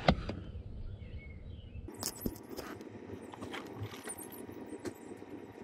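Faint, irregular clicks and rustles in a car's driver footwell as the accelerator pedal is pressed down and held with the ignition on and the engine off.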